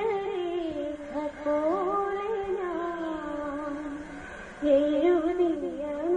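A woman singing a Malayalam film song solo, one voice carrying a gliding, ornamented melody; she breathes briefly about four seconds in and then comes back in louder.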